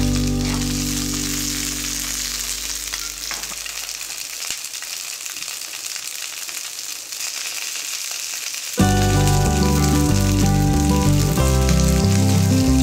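Sausages and green beans sizzling in olive oil in a frying pan, a steady crackling hiss. Background music fades out over the first few seconds and comes back in abruptly about nine seconds in, louder than the sizzle.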